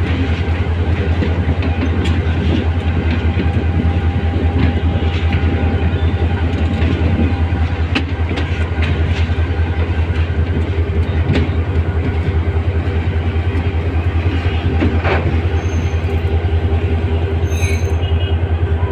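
A 1500 hp diesel locomotive moving along the track, heard from its end platform: a steady low engine drone with the rumble of wheels on rails and a few sharp clicks over rail joints.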